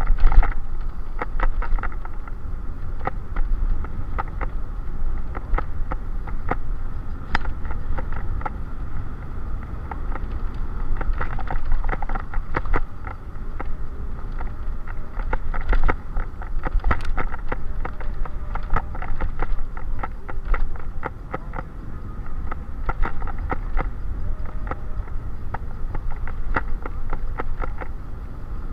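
Wind buffeting the microphone of a handlebar-mounted camera on a moving bicycle, a steady rumble with tyre noise, and frequent short rattles and knocks as the bike rolls over the cracked asphalt.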